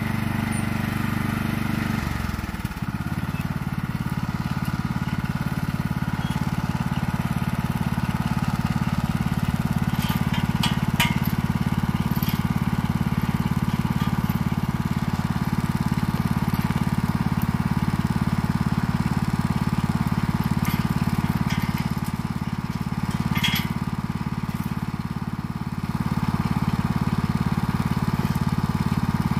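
Toro lawn tractor's engine running steadily, its pitch dropping about two seconds in. A few short metal clinks come about ten to twelve seconds in and once more near the end, as the log is worked at on the logging arch.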